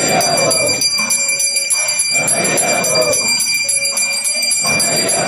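Brass puja hand bell (ghanta) rung rapidly and without pause, a continuous bright ringing struck several times a second. Chanting voices swell and fade about every two seconds over it.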